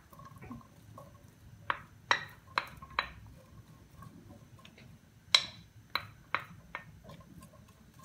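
A wooden spoon and utensils knocking against a granite-coated pan while chopped onion is stirred in oil. Two runs of four sharp taps, the first a little over a second and a half in, the second about five seconds in.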